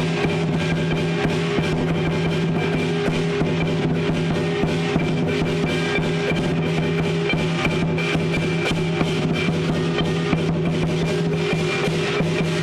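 Lion dance percussion playing without a break: a drum beaten in dense, rapid strokes with clashing cymbals, over steady ringing tones.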